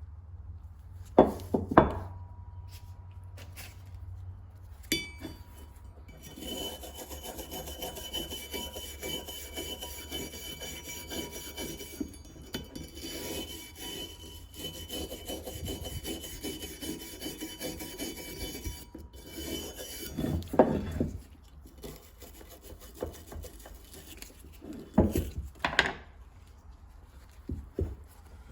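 Steady abrasive rubbing by hand on the brass gasket cutter, running for about fourteen seconds in the middle. A few sharp knocks of the part or tool being handled come before it and after it.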